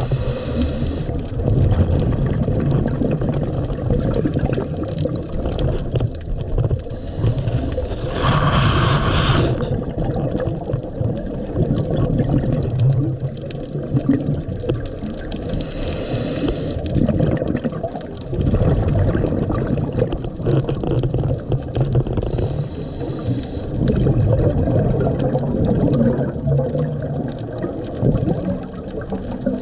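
Scuba diver breathing through a regulator underwater: a short hiss of inhalation about every seven seconds, with a low bubbling rumble of exhaled air between the breaths.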